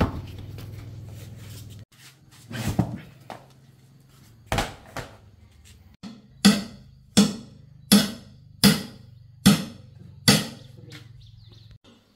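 Heavy knocks, a few scattered at first and then a run of six hard strikes about every three-quarters of a second, each ringing out briefly. Under them is a steady low hum that stops near the end.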